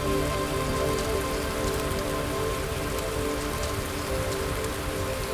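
Steady rain with scattered drop ticks, over a soft music pad of long held notes.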